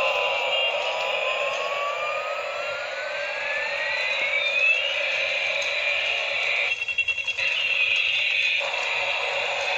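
Battery-operated toy helicopter playing its electronic siren sound effect: a tone that dips and then glides up over a few seconds, over a steady electronic background, with a brief fluttering stutter about seven seconds in.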